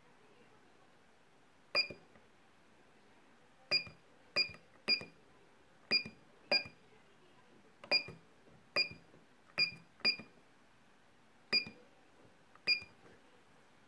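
Keypad of a BUSE BS 100 bus on-board computer (IBIS control unit) giving a short high beep with each key press, about a dozen presses at irregular spacing, some in quick pairs.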